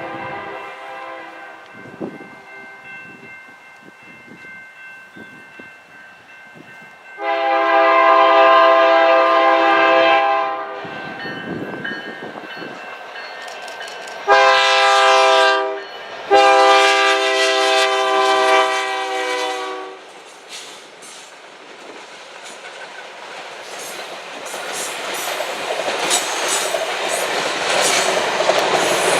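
Locomotive air horn on an EMD SD70ACu sounding a grade-crossing pattern. The tail of one blast fades in the first second, then comes a long blast, a short one and a long one. The train then draws near, a rising rumble with wheels clattering over rail joints.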